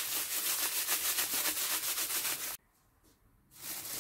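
Plastic food bag rustling and crinkling as chicken strips are worked around inside it in a breadcrumb mix, a fast run of short rubbing strokes. The sound cuts off abruptly about two and a half seconds in, stays silent for about a second, then the bag rustles again, more faintly.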